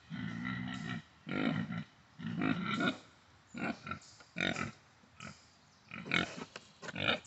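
Pig grunting over and over, about one short grunt a second, the first one longer and more drawn out.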